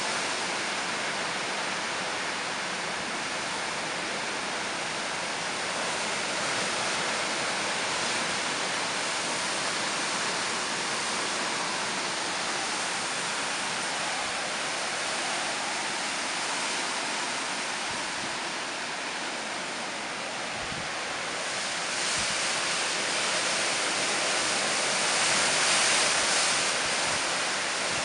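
Hurricane-force wind and driving rain, a steady rushing hiss through the trees. A stronger gust swells near the end.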